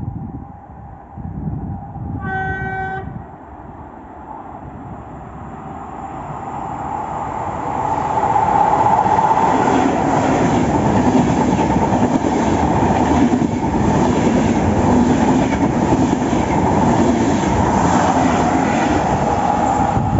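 A train gives one short horn blast, then comes in and runs past at speed. The rumble of wheels on rail builds up and stays loud.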